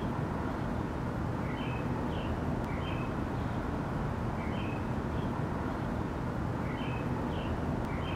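Steady low outdoor rumble, with short high chirps from a small animal, often in pairs, repeating every second or two.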